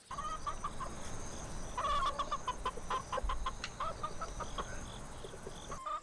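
Domestic chickens clucking: many short calls in quick succession, busiest about two seconds in.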